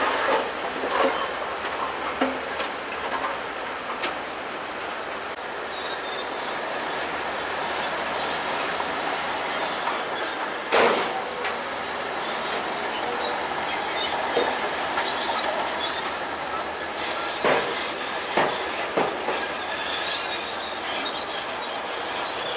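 Crawler bulldozer working, its steel tracks squealing and clanking over a steady mechanical noise. A few sharp metal clanks stand out: one loud clank near the middle, and several more near the end.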